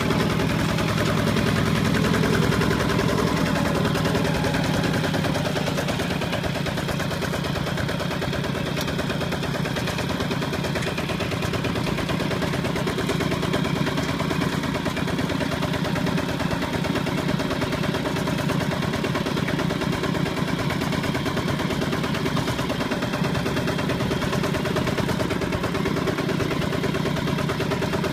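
Kubota two-wheel walking tractor's single-cylinder diesel engine running steadily under load as it pulls through deep mud, its exhaust a fast, even knocking beat.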